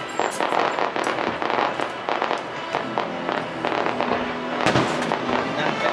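Fireworks bursting and crackling in rapid succession, with music playing underneath.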